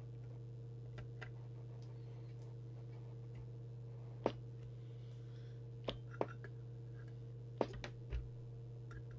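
A trim tool clicking and tapping against the adjustable coils of a Midland 78 Plus CB radio's circuit board, a handful of small sharp clicks over a steady low hum.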